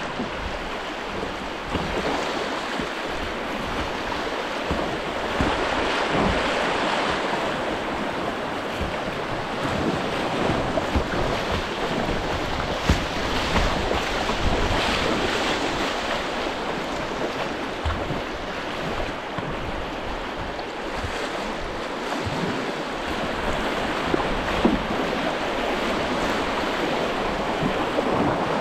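River water rushing and splashing around a kayak running small rapids, with wind buffeting the microphone at times.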